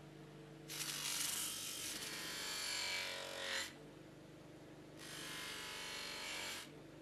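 Bench grinder-polisher motor running with a steady hum, and twice a loud whirring hiss as work is pressed against the spinning wheel: from about a second in for almost three seconds, and again from about five seconds in for under two seconds.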